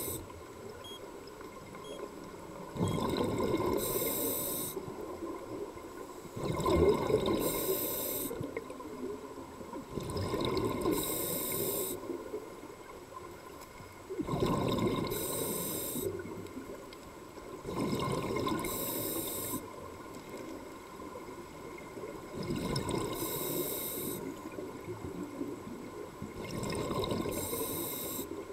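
A scuba diver breathing through a regulator underwater: each breath has a high hiss of air through the regulator and a bubbling rumble of exhaled bubbles, in a steady rhythm of about one breath every four seconds.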